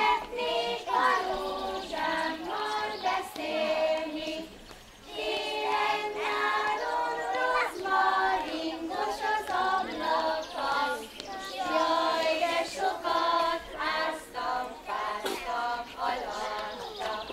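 A group of young children singing a Hungarian folk song together in unison, unaccompanied, with a short break about five seconds in.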